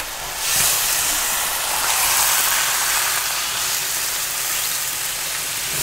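Broth being poured in a steady stream into a hot Dutch oven of fried onions and pork, splashing and sizzling as it hits the pan. The stream starts about half a second in and runs on.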